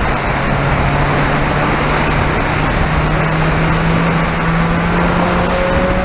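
Spec Racer Ford Gen3 race car's engine pulling hard under a loud rush of wind and road noise in the open cockpit, its note rising slowly and steadily as the car accelerates.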